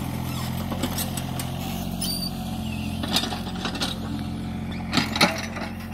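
Tata Hitachi ZX33U mini excavator's diesel engine running steadily while digging, with a few sharp knocks: one about three seconds in and two close together near the end.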